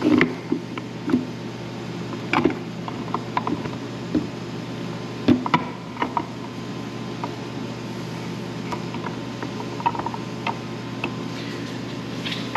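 Steel gears and shafts of a T5 manual transmission clinking and knocking as the gear stack is worked into its aluminium case, in scattered short metal clicks over a steady low hum.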